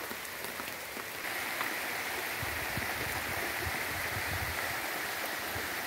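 Heavy rain pouring down steadily, a dense even hiss that grows a little louder about a second in.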